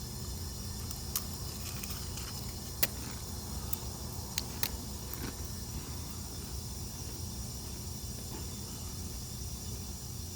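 A few short, sharp crackles from a bag of potato chips being opened and the chips being bitten, scattered over the first half, over a steady low hum.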